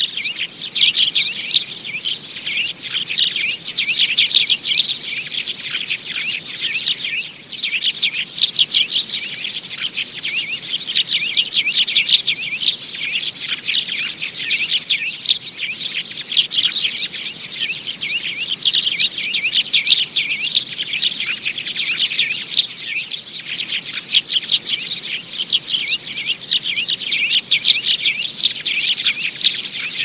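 A flock of sparrows chirping continuously, many quick overlapping chirps with no pause: a sparrow call of the kind played as a lure to draw sparrows in.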